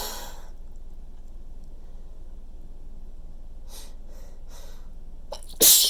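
Human sneezing: the tail of one sneeze fades in the first half second, then a few quiet breaths in, and a sudden loud, wet sneeze bursts out near the end.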